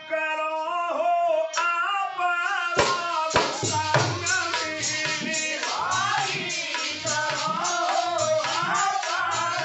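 Male voice singing a devotional folk song to harmonium. About three seconds in, a dholak drum strikes in and the full ensemble plays on with the singing.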